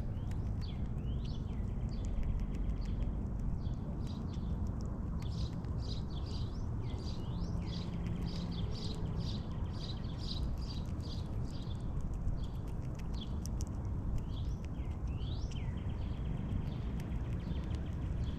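Small birds chirping and calling, with many short chirps and some down-slurred calls overlapping throughout, over a steady low rumble.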